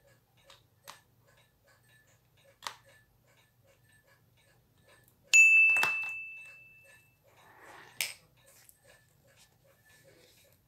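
Faint steady ticking of a watch, with a few sharp clicks from a metal spring-bar tool working on a leather watch strap. About halfway through, a loud bright chime sound effect rings out and fades over about two seconds.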